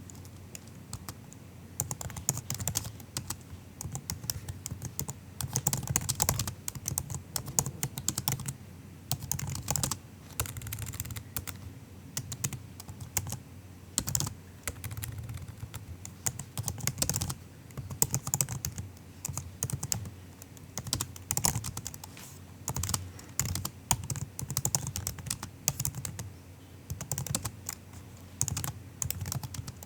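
Soft typing on a MacBook keyboard: quick runs of light key clicks in bursts with short pauses between them, starting about a second in.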